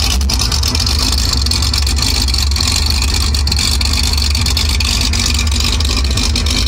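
Big-block 454 V8 jet boat engine running steadily at low speed, a deep, even rumble, with a hiss of wind and water over it.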